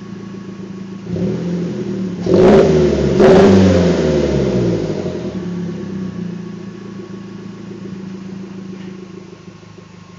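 Exhaust of a 2009 Mazdaspeed3's turbocharged 2.3-litre four-cylinder, through a Borla cat-back exhaust and Cobb downpipe. The warm engine idles, is blipped lightly about a second in, then revved hard twice in quick succession at about two and three seconds, and settles back to a steady idle. The cellphone microphone is saturated by the sound.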